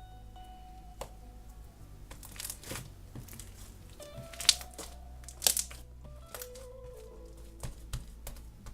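Slime being squished and stretched by hand, giving crackles and clicks with two sharp pops about halfway through, over soft background music.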